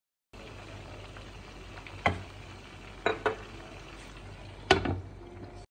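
Chicken seekh kebabs sizzling steadily in hot oil in a pan, with a few sharp metal clinks, the loudest pair near the end as the lid goes on to smoke them over a hot coal.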